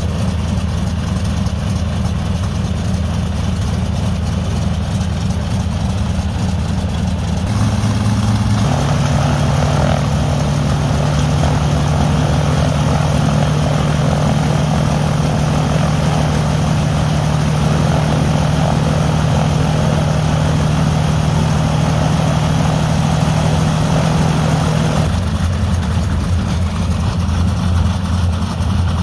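Dassault Flamant's piston engines running with propellers turning. About eight seconds in the sound steps up to a louder, higher steady hum, which drops back to the lower idle about 25 seconds in.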